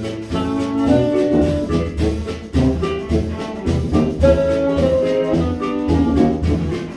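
1920s-style jazz band playing live: melody lines over a steady, pulsing sousaphone bass, with saxophone, violin, piano and drums in the lineup.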